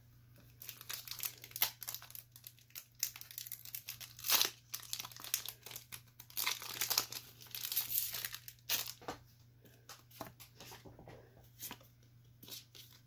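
Foil wrapper of a Pokémon Celebrations booster pack being torn open and crinkled by hand, a dense crackling that runs for about nine seconds. Near the end it gives way to quieter, scattered rustles as the cards are handled.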